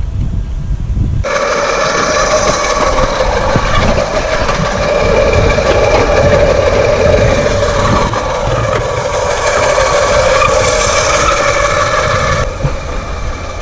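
Wind buffeting the microphone, then, cutting in about a second in, a small mobile well-drilling rig running with a loud, steady whine with several overtones. The higher overtones drop away near the end.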